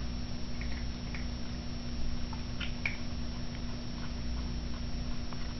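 Kitten eating raw beef cubes from a ceramic bowl: soft chewing and mouthing with scattered small clicks and ticks.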